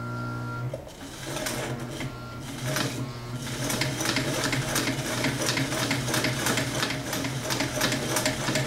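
Vintage Sears Kenmore heavy-duty sewing machine's motor humming, then stitching through eight layers of heavy denim with a size 16 denim needle. The needle strokes start slowly and unevenly, then settle into a fast, steady run from about three seconds in.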